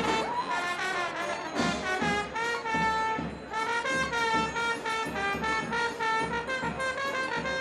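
Brass street band playing: horns holding melody notes over a steady, regular low beat.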